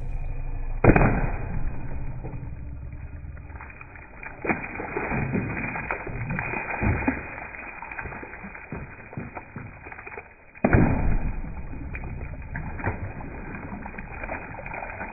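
Sword strikes cutting into a water-filled plastic gallon jug, twice: a sharp hit about a second in and another near the eleventh second, each followed by water splashing and pouring out of the slashed jug.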